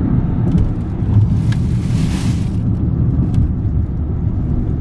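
Steady low road rumble of a moving car, with a brief rising-and-falling hiss about two seconds in.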